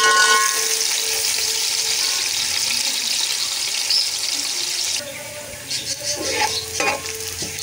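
Sliced onions sizzling in hot oil in a large metal pot, a steady hiss as they start to fry. About five seconds in the sizzle drops quieter, and a metal ladle scrapes the pot a few times as it stirs.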